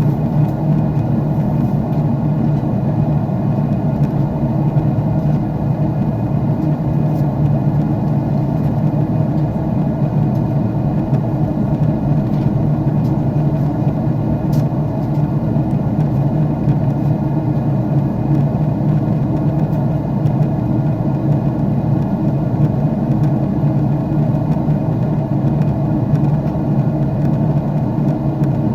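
Jet airliner cabin noise in flight: the steady, even drone of the engines and rushing air, heard from inside the cabin with a deep hum at its core.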